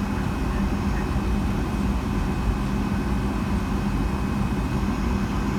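Steady cabin noise inside a Boeing 757-200 on the ground after landing: an even rush with a steady low drone.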